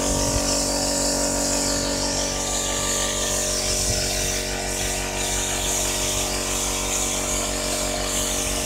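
Gravity-feed spray gun hissing steadily as it sprays thick latex paint, over the steady hum of a small electric air compressor running.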